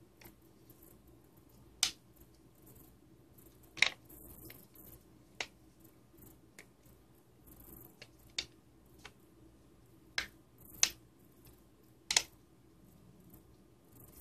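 Plastic case halves of an EasyAcc power bank pressed back together, the snap-fit clips clicking into place. Several sharp clicks, a second or two apart.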